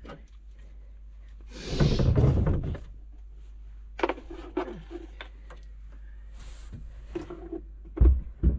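Small knocks, clicks and scrapes of a diesel bunk heater being seated in its mount and a tool being handled, with a loud breathy vocal effort about two seconds in and a heavy thump near the end.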